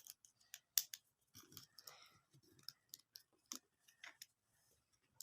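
Small plastic building blocks being handled and pressed together: faint, irregular clicks.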